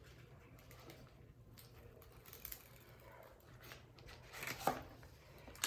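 Faint rustling and crinkling of a diamond painting canvas and its plastic cover being unrolled and handled, with a louder crackle about four and a half seconds in.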